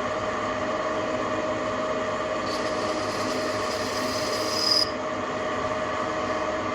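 TV-16 lathe running with a steady whine from its motor and gearing. From about two and a half seconds in, a high squeal lasts about two seconds as the cutter takes an internal chamfer in the workpiece.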